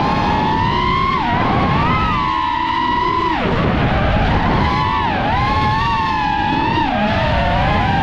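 FPV freestyle quadcopter's motors and propellers whining, the pitch rising and falling with the throttle as it rolls and spins. About three and a half seconds in the pitch drops sharply as the throttle is chopped, then climbs again.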